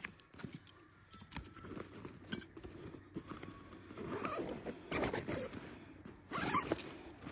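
Gear being handled on a nylon backpack: a few light metal clicks of thin tent stakes being pulled out and set down in the first couple of seconds, then heavier nylon fabric rustling and scraping, loudest near the end.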